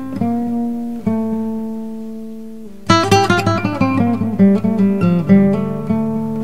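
Acoustic guitar music: two strummed chords left to ring, then a quick run of plucked notes starting about three seconds in.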